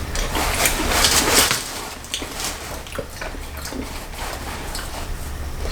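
Crisp crunching of a dry Italian breadstick being bitten and chewed, densest in the first second and a half, then lighter chewing.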